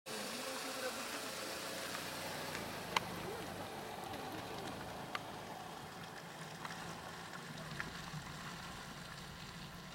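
Car engine idling with a steady low hum, broken by a few sharp snaps, the loudest about three seconds in and another just after five seconds.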